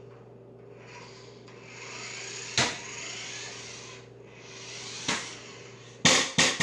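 Toy remote-control car's electric motor and wheels whirring across the floor in two runs, with a sharp knock about two and a half seconds in. Near the end comes a loud clatter of several hits as the car crashes into something and knocks it over.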